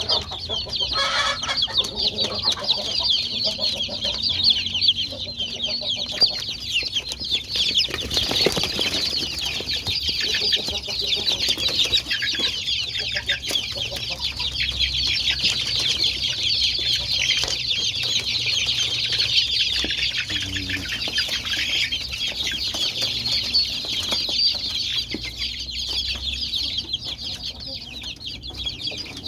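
A flock of about forty 35-day-old kampung chicks (Indonesian native chickens) cheeping without pause, a dense high-pitched chorus of many overlapping calls, with a brief rustle about eight seconds in.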